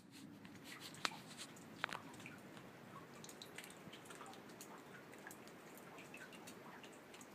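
Light rain dripping: faint scattered drops ticking, with two sharper drips about one and two seconds in, over a low steady background of rain and wind.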